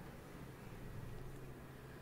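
Faint, steady sizzle of batter-coated stuffed chillies deep-frying in hot oil in an iron kadhai, over a low steady hum.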